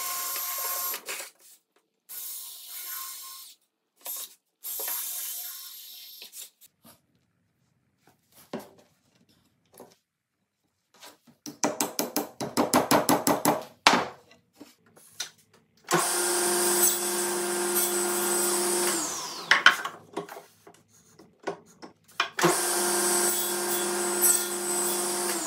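Cordless drill whirring in several short bursts as it bores dowel holes in a wooden frame's corners, then a hammer tapping dowels in with a rapid run of sharp knocks. After that a table saw runs steadily, twice, as the frame is pushed through to trim the dowels.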